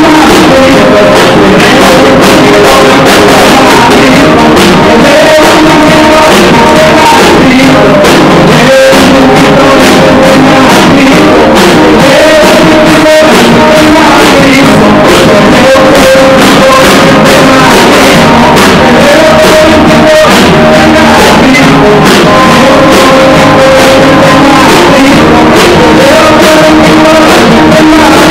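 Live worship music from a small band with drum kit and electric guitar, a man singing over it and the congregation clapping along to a steady beat. It is recorded so loud that it is pushed to the top of the level throughout.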